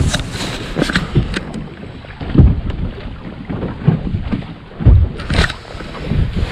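Wind buffeting the microphone and choppy lake water slapping against a bass boat's hull, with heavy low thuds about two and a half seconds in and again near five seconds.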